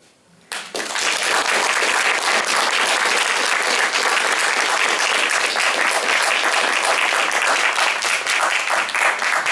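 Audience applauding, breaking out suddenly about half a second in and keeping up steadily.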